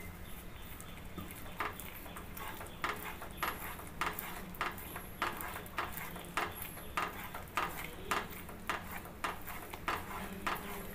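Wooden spatula stirring a thick ash-gourd halwa mixture in a nonstick pan, knocking and scraping against the pan about twice a second.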